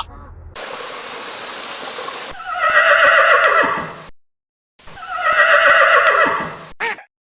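Horse whinnying twice, each call about two seconds long and falling in pitch, with a short silence between them. The calls follow a steady hiss of about two seconds.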